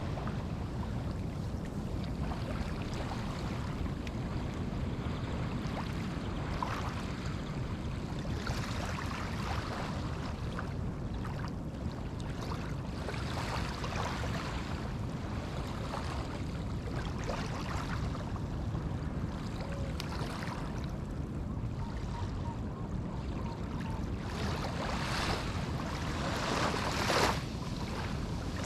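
Small Atlantic waves washing onto a sandy shore: a steady low rumble of surf with repeated hissing washes of foam, the loudest one near the end.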